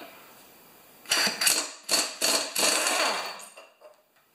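Pneumatic impact wrench hammering in several short bursts, starting about a second in and stopping after about two and a half seconds, as it undoes the flywheel nut that holds the starter cup on a Tecumseh lawnmower engine.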